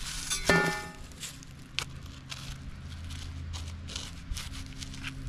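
Scattered scrapes and crunches from digging in dirt and leaf litter to recover a metal-detector target. About half a second in there is a short pitched tone.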